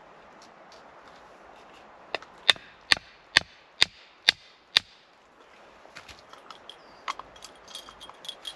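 Hatchet striking the top of a wooden stake to drive it into the ground: seven sharp knocks about two a second, starting about two seconds in. Fainter clicks and rustling follow near the end.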